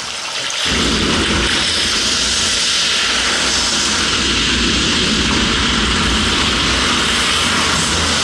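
Loud steady rushing noise that starts suddenly, with a deep rumble filling in under a second in and holding even throughout.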